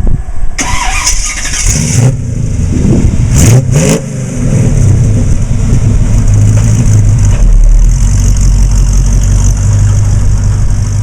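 Fuel-injected Chevrolet ZZ4 small-block V8 of a 1936 Ford street rod revving up, its pitch rising about three seconds in, then running steadily as the car drives along.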